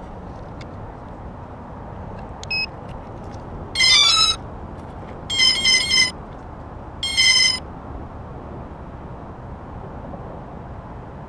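Electronic beep tones from the octocopter's brushless motors and speed controllers as it powers up and arms before takeoff: a short beep, then three bursts of quick stepped tones over a steady background hiss, with no propeller drone yet.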